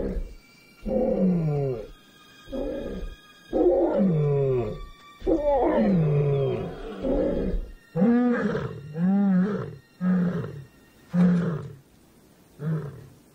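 A lion roaring: several long, loud roars sliding down in pitch, then a run of shorter grunts about one a second that taper off near the end.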